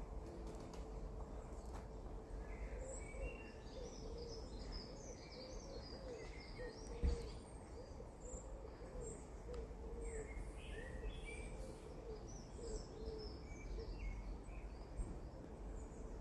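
Woodland birdsong: several small birds chirping and singing high up, over a low hooting call repeated about twice a second. A single thump about seven seconds in.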